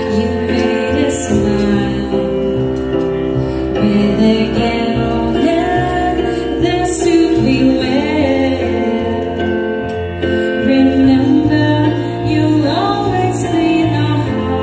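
A woman singing into a handheld microphone over instrumental accompaniment, her voice carrying a sustained, gliding melody.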